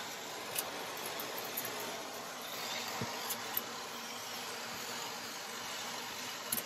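Bissell vacuum cleaner running steadily on stair carpet, an even whooshing hiss with a few sharp clicks scattered through it.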